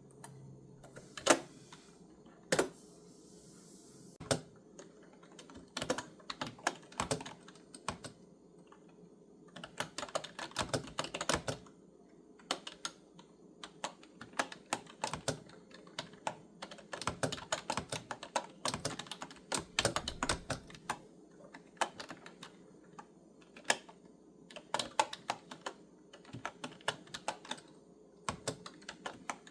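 Clicky computer keyboard being typed on in uneven runs of keystrokes with short pauses between them; a single stroke about a second in is the loudest.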